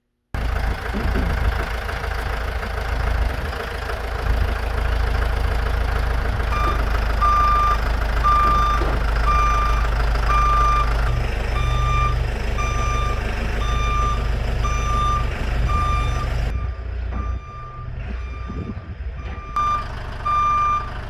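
A vehicle's engine running steadily, with its reverse warning beeper starting about six seconds in and beeping at an even pace of a little more than one beep a second.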